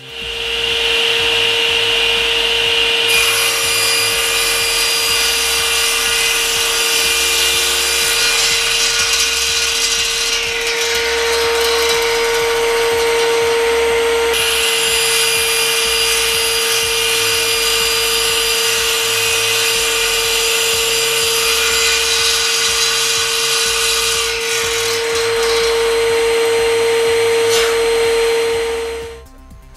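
SIP 01332 10-inch cast iron table saw, with its 2200 W motor, running and crosscutting a board of iroko hardwood: a loud, steady whine from the blade and motor over the rasp of the cut. The sound cuts off just before the end.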